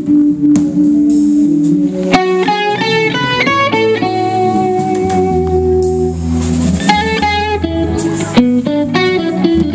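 Live instrumental band playing on electric guitar, drums and keyboard, with a lead line of quick runs of notes and a long held note in the middle over a steady bass.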